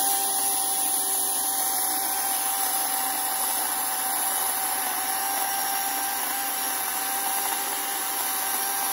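DeWalt cordless electric chainsaw running at full speed, cutting through a tree limb close to the trunk: a steady high motor-and-chain whine that holds one pitch throughout.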